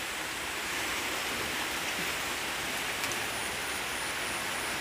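Heavy rain falling steadily on a corrugated metal roof overhead, an even hiss with no letup.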